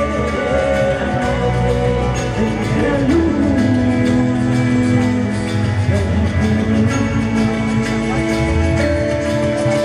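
A live band playing a slow song, with guitars and a steady bass, during an instrumental passage between sung verses.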